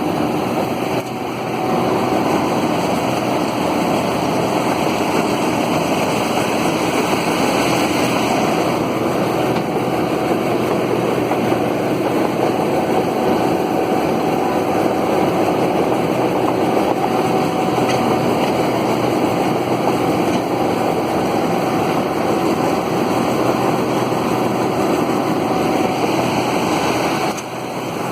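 New Holland TF44 combine harvester running steadily during rice harvesting, a loud continuous drone of engine and machinery that drops a little near the end.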